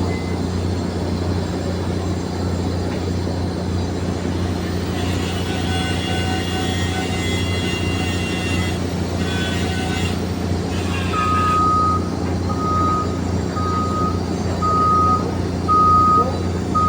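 Steady engine hum. About two-thirds of the way through, a reversing alarm starts beeping at one steady pitch, about once a second.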